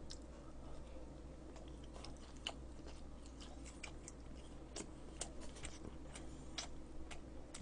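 Faint chewing of a mouthful of sushi, with scattered soft, wet mouth clicks.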